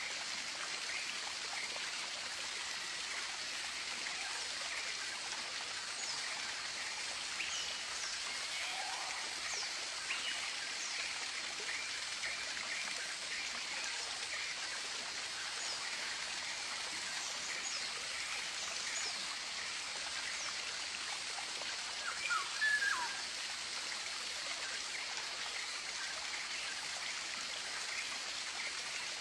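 Tropical nature ambience: a steady rushing hiss like a forest stream, with short, faint high bird chirps scattered throughout and one louder call with a falling note about two-thirds of the way through.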